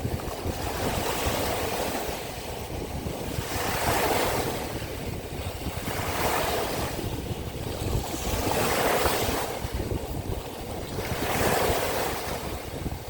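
Small waves of the Sea of Azov washing onto the shore, a swell about every two and a half seconds, five in all, with wind rumbling on the microphone.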